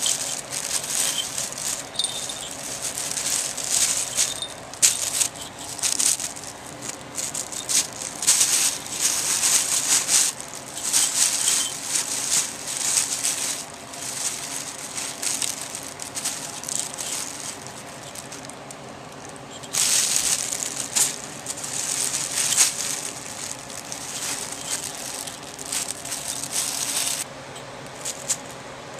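Plastic bag rustling and crinkling in irregular bursts as kittens play in it, with a collar bell jingling now and then.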